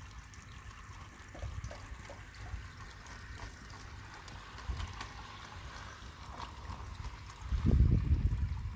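Water trickling steadily, with a few faint clicks and a louder low rumble near the end.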